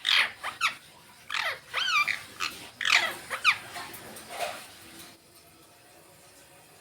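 Indian ringneck parakeets calling: a run of sharp squawks that sweep down in pitch, with a wavering call in the middle, stopping about four and a half seconds in.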